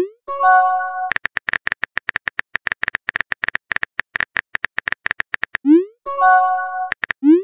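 Simulated phone-keyboard typing: a run of rapid key clicks. Each message send brings a quick rising swoop and then a short, bright chime of several held tones. This happens at the start, and again near the end with one more swoop at the very end.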